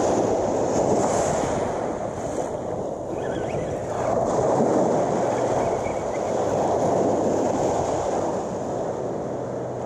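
Small surf breaking on a sandy beach and washing up the shore, with wind on the microphone; the noise rises and falls a few times as the waves come in.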